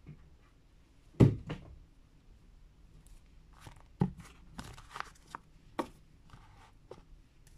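Lenormand cards handled on a tabletop: one sharp tap a little over a second in, then a scatter of lighter clicks and rustles as the deck is moved and a card is drawn.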